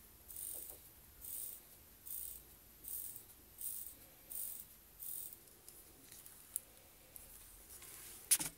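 Crown of an automatic watch being hand-wound in repeated strokes, each a short, high-pitched ratcheting rasp from the winding mechanism, about one every three-quarters of a second, stopping about five seconds in. A single sharp click near the end is the loudest sound.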